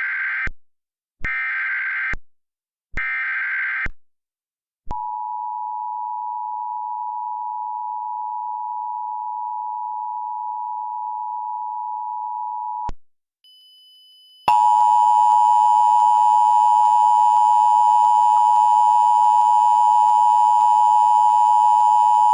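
Emergency Alert System tones: three short screeching bursts of SAME header data, then the steady two-tone EAS attention signal held for about eight seconds. After a short gap, a louder, harsher, buzzy alert tone starts about fourteen seconds in and holds.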